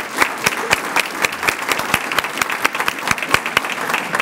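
An audience applauding: many hands clapping in a steady, dense patter.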